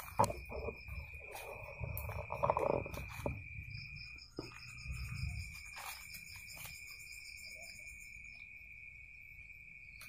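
Night insects, crickets among them, trilling steadily in one unbroken high note that stops briefly a little after four seconds in, with a fainter pulsing chirp above it. Footsteps and rustling through dry undergrowth in the first half.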